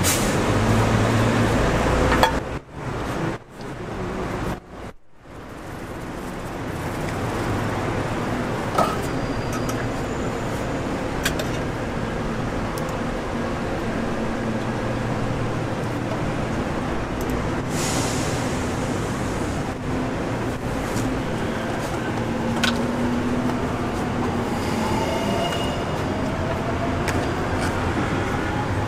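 Steady outdoor street background noise with a traffic-like rumble, dropping out briefly a few seconds in, with a few light clinks of metal tongs and utensils.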